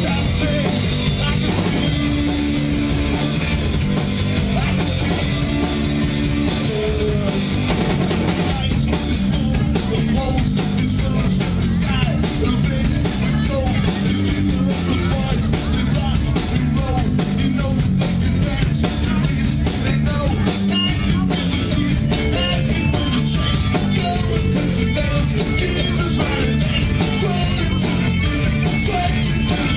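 Live rock band playing loudly on drum kit, electric guitar and bass guitar. Cymbals wash over the first several seconds, then the drums drive a tight, even beat.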